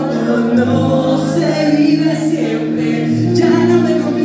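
Rock band playing live with singing, held bass notes changing about once a second under the voices.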